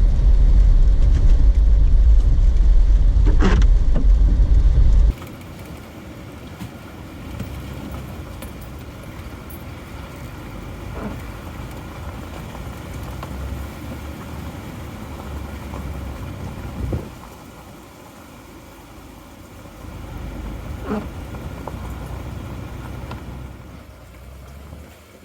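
Jeep Wrangler driving on a dirt road, a steady low rumble of engine and road noise. About five seconds in the sound drops suddenly to a quieter drive noise with a few light knocks.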